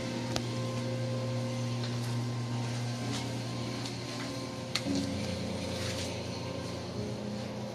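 A low steady drone that changes pitch in steps every couple of seconds, with faint scattered clicks over it.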